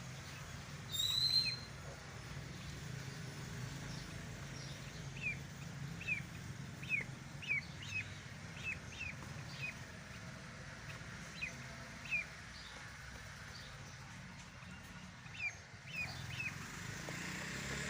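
A duckling peeping: one louder peep about a second in, then a string of short, falling peeps at uneven intervals, over a low steady hum.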